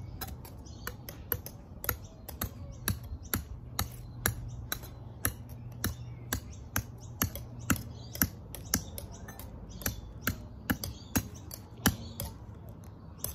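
Knife point stabbing and chipping into a block of ice, a steady run of sharp clicks about two a second. A low steady hum sits underneath.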